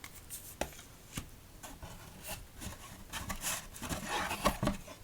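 Playing-card decks being handled: a couple of sharp taps in the first second or so, then a stretch of rubbing and rustling that is loudest near the end.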